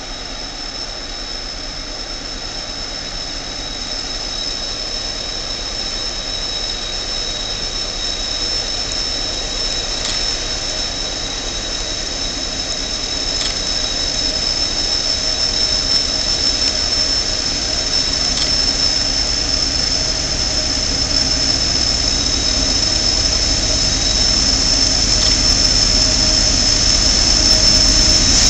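CSX freight train's lead diesel locomotives working hard up a grade, growing steadily louder as they approach, with a steady high-pitched squeal over the engine rumble.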